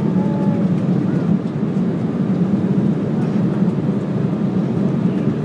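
Steady drone of an airliner's cabin in flight, jet engine and airflow noise, a low even rumble with no change.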